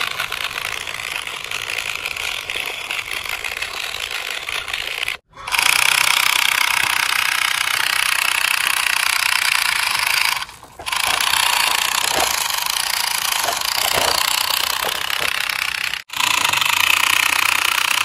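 Small electric motor and plastic gearbox of a toy RC truck buzzing steadily, broken by short gaps about 5, 10 and 16 seconds in.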